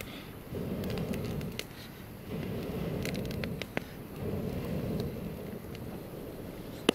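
Wood fire crackling in a camp cooking stove, with scattered sharp pops, over a low rushing noise that swells and fades about every two seconds, three times.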